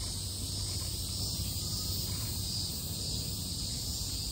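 Steady summer insect drone of cicadas: an unbroken high hiss with no pauses, over a low steady hum.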